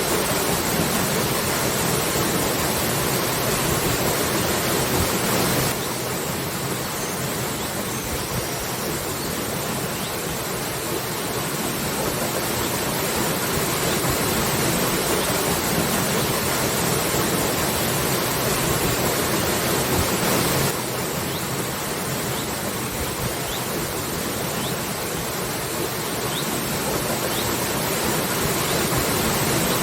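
Waterfall: a steady, full rush of falling water. It drops slightly in level about six seconds in and rises again about twenty-one seconds in.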